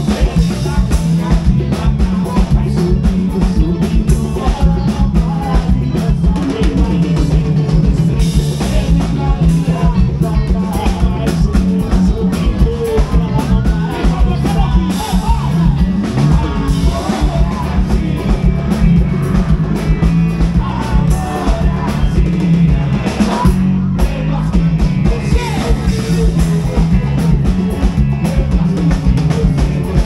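Live sertanejo band playing with male lead vocals over accordion, drum kit, bass and guitar.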